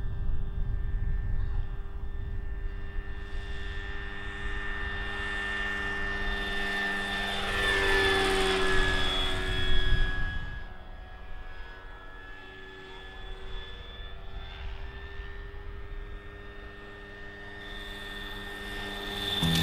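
Giant-scale radio-controlled AH-1Z Cobra model helicopter in flight, its rotors and drive giving a steady whine with several held tones. It grows louder as it passes close, peaking about ten seconds in, then fades back down.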